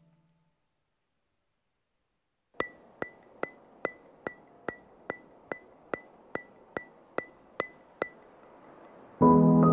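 Dead silence for a couple of seconds, then a steady, evenly spaced ringing tick, a little over two a second, from the added music soundtrack. Near the end a slow piano-led music track comes in.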